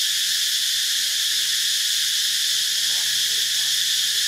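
A chorus of forest insects keeps up a steady, high-pitched drone without let-up.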